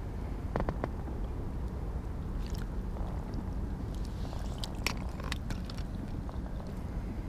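A hand reaching into water, lily pads and weed to grab a largemouth bass and lift it out, making a few short wet splashes and squelches, with a cluster about five seconds in. A steady low rumble of wind on the microphone runs under it.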